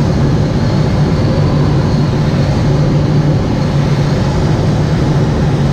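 Steady rush of air with a low hum inside a sailplane's cockpit in flight, as the glider recovers from a practice stall.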